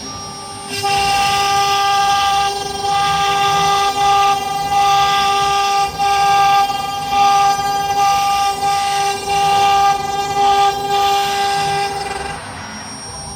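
AKM2040 CNC wood router's spindle running with a steady high whine while the bit cuts wood. The cutting noise comes in about a second in, goes in surges with short breaks, and eases off near the end.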